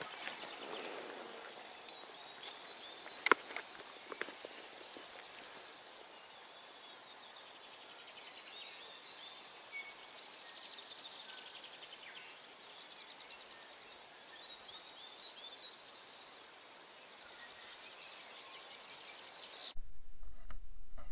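Birds singing in fast repeated trills and chirps over a faint outdoor background, with a few sharp clicks in the first seconds, the loudest about three seconds in. Near the end the sound cuts abruptly to a low rumble.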